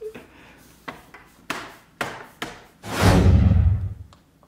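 Sharp clicks and taps as the plastic bottom shell of an Alienware 17 R4 laptop is pressed and snapped into place and the laptop is handled on a wooden table. About three seconds in comes a louder, deeper thud and rub lasting about a second as the laptop is turned over and set down.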